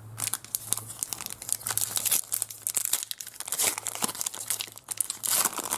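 Trading card pack wrappers crinkling and tearing as packs are opened by hand, in a dense run of small crackles. A steady low hum sits underneath.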